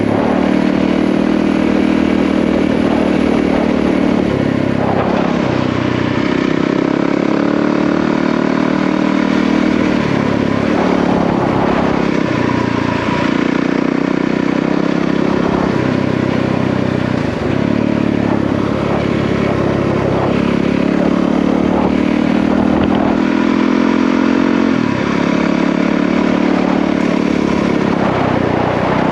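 Yamaha WR450F single-cylinder four-stroke dirt bike engine running under way on a trail, its revs rising and dropping every few seconds as the throttle is worked and gears change.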